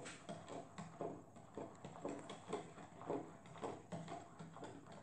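A spoon stirring jelly mix in a plastic measuring jug, clacking against the jug's sides in a steady rhythm of about two or three knocks a second.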